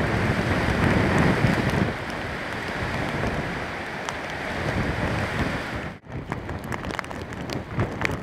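Waves crashing and gusting wind buffeting the microphone. About six seconds in the sound cuts abruptly to gusty wind with sharp crackles.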